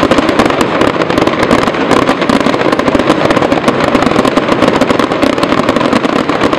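Fireworks display: a dense barrage of sharp crackling bangs, many a second, with no break.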